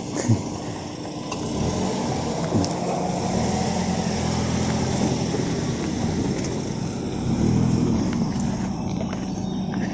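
Perodua Bezza sedan's engine running as the car creeps forward over rough ground, its pitch rising twice as it is given throttle. It is loudest about three-quarters of the way in, as it passes close by.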